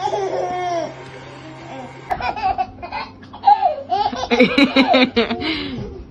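A baby laughing in short repeated bursts, loudest in the second half.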